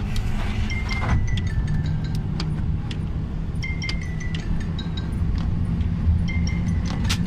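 Car engine running, heard from inside the cabin as a steady low drone, with short high chiming tones at one pitch sounding every couple of seconds.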